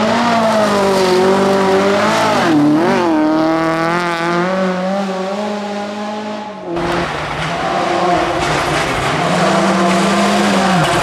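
Rally car engines at high revs on a gravel stage, the pitch dipping and climbing again several times through gear shifts and throttle lifts. About two-thirds of the way through the sound changes abruptly to a second car, a VW Polo rally car, whose engine runs under a noisier hiss of tyres on loose gravel.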